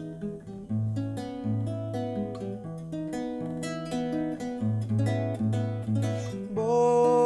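Acoustic guitar playing a gentle instrumental passage of picked notes and chords, the accompaniment to a slow lullaby. A sung note comes in near the end.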